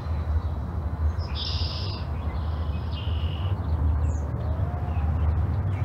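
A low, fluttering rumble of wind on the microphone. Over it, a bird gives a high trilled call about a second in, a second call around three seconds, and a short rising chirp near four seconds.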